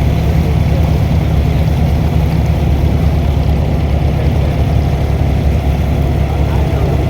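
An abra's diesel boat engine running steadily with a loud, even low rumble.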